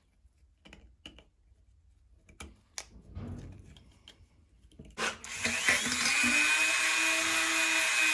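A few light handling clicks and knocks. Then, about five seconds in, a handheld electric rotary tool starts, winds up briefly and runs steadily as it cleans the remaining old gasket off the metal flange of a tractor's front-axle portal housing.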